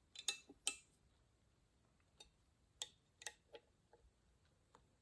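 Scattered light clicks and taps at irregular intervals, the clearest two within the first second, from handling the metal parts of an adjustable dumbbell handle and its bolt-on plate.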